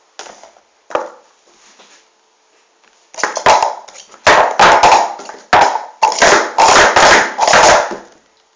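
Plastic sport-stacking cups being stacked up and down at speed in a 3-6-3 sequence. A couple of light taps, then about three seconds in a rapid, loud clatter of cups knocking and sliding together for about five seconds.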